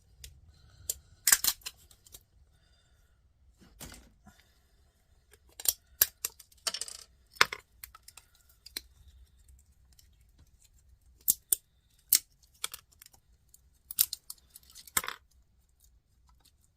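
Hand tools working a small transformer free from a circuit board: a string of separate sharp snips, clicks and clinks at irregular intervals, with a few louder snaps.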